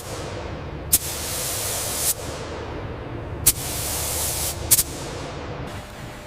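Three bursts of pressurised spraying hiss, each set off by a sharp click and lasting about a second before tailing away, over a steady low rumble.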